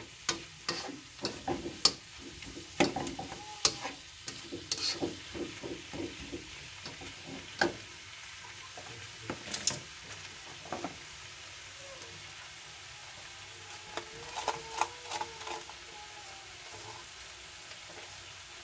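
Bok choy stir-frying in a nonstick wok: a black spatula scrapes and taps against the pan over a steady sizzle. The stirring stops for a few seconds about halfway, comes back briefly, then leaves only the sizzle.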